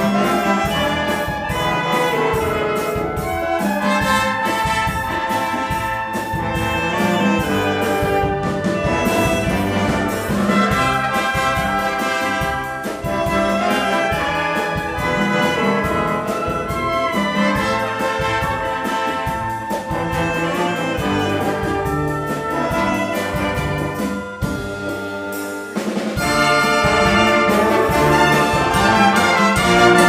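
Live symphonic wind band playing an up-tempo medley, with brass prominent over clarinets and flutes and a steady beat. About three-quarters of the way through it drops back briefly, then the full band comes in louder.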